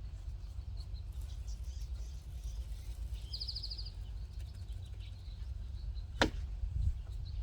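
Steady low outdoor background rumble, with a short high-pitched bird trill about three seconds in and a single sharp click a little after six seconds.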